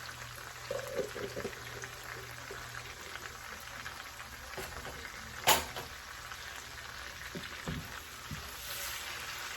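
Minced garlic frying in butter and oil in a pan: a steady soft sizzle, with one sharp clink about halfway through and a few light knocks later.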